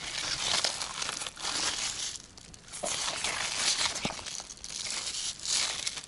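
Cucumber leaves and vines rustling and crackling as a hand pushes through them, in uneven surges with a short lull about halfway through.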